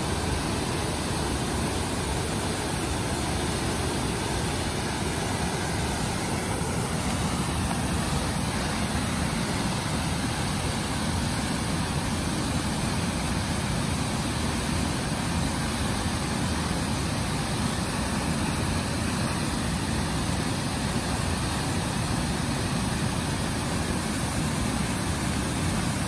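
Waterfall pouring over rock ledges into a gorge: a steady, unbroken rush of falling water.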